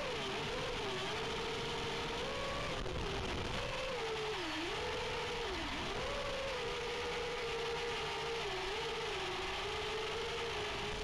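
FPV freestyle quadcopter's motors and propellers whining in flight over a steady hiss, the pitch wavering with the throttle and sagging sharply twice around the middle as the throttle is chopped.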